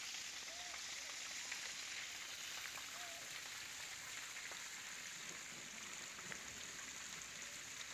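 Steady hiss of rain falling on trees and wet ground, with a couple of faint short calls in the first few seconds.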